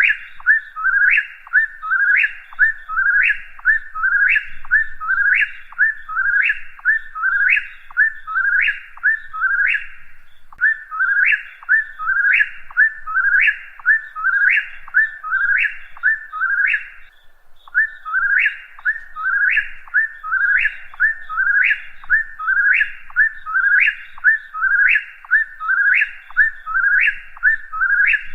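Whip-poor-will singing its three-part whistled song over and over, about one and a half phrases a second, each phrase ending in a sharp upward note. There is a short break a little past halfway, then the singing resumes.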